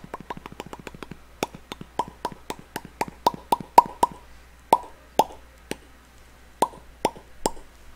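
A man making a quick run of hollow popping sounds with his mouth, irregular, a few a second, each with a short ringing tone, with a brief pause a little past the middle.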